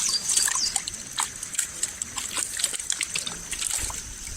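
Water sloshing and trickling, with many small quick splashes. A steady high-pitched hum runs underneath.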